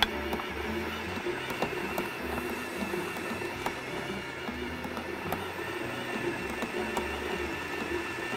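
Electric stand mixer running steadily, beating a stiff dough in its metal bowl as cream is poured in, with irregular sharp clicks. Background music with a shifting bass line plays underneath.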